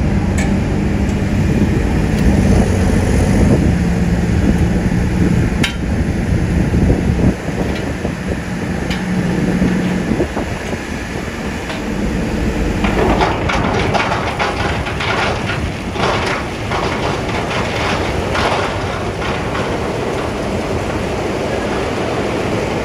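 A heavy engine running with a steady hum, with a few sharp knocks. About halfway through, a long rattling clatter begins as a dump truck tips its load of rock chunks onto the quay.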